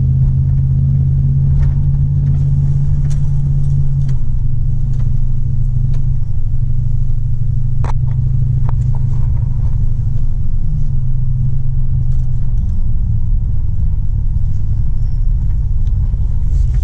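Inside the cab of a 1999 Dodge Ram 1500 pickup on the move: a steady low drone of engine and road noise, its pitch stepping down about four seconds in. A single sharp click near the middle.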